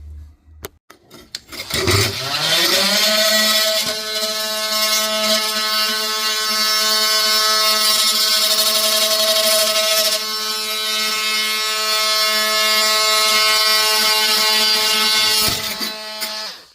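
An electric power-tool motor starts up with a rising whine, about two seconds in. It runs steadily at one pitch for about thirteen seconds, then winds down and stops near the end.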